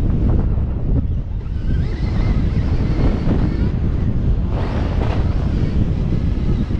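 Heavy wind rush buffeting the microphone while riding a Stark Varg electric motocross bike, a steady low rumble of noise with no engine note. A brief louder rush of noise comes about five seconds in.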